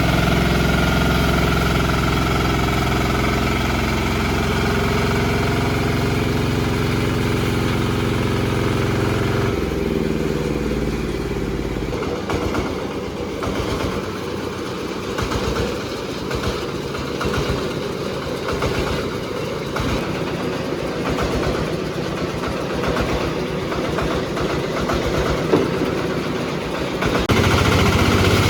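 Engine-driven horizontal band sawmill running. After about ten seconds the steady hum gives way to a rougher, rapidly pulsing sound, and the steady hum returns near the end.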